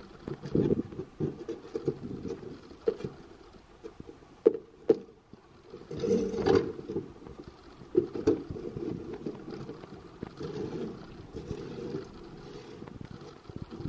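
Scraper chipping and scraping dry-ice-frozen sound deadening off a car's steel floor pan: irregular knocks and scrapes, with a few sharper strikes as pieces crack loose.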